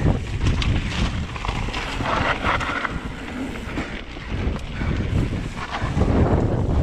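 Vitus Sommet mountain bike riding a rough downhill trail: wind buffeting the microphone over a steady rumble of tyres and a frame rattling, with scattered short clicks and knocks from the bike over bumps.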